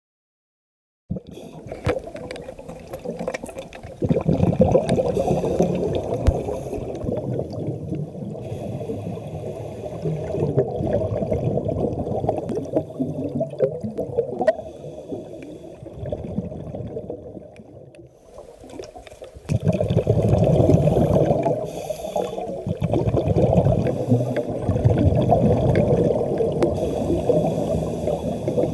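Underwater scuba breathing: a diver's exhaled bubbles gurgling and rushing in bursts of a few seconds, with quieter gaps between, starting about a second in, heard through an underwater camera housing.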